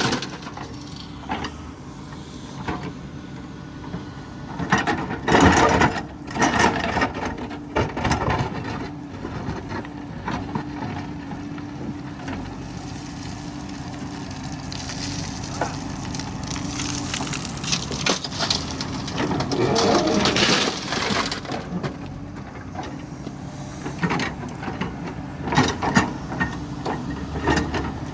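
A diesel engine running steadily, with irregular metallic clanks and rattles over it.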